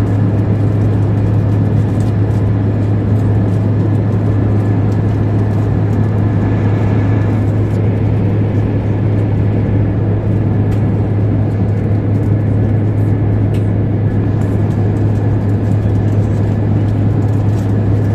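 Jet airliner cabin noise in cruise flight: a loud, steady rush of engine and airflow noise with a strong low hum and a faint steady high whine.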